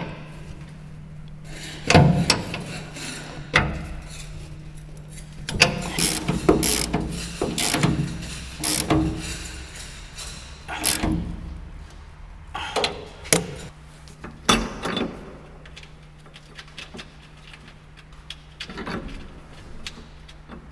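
Socket ratchet wrench clicking in short runs, with metal scrapes and knocks, as the bolts holding sacrificial anodes to a steel boat hull are turned.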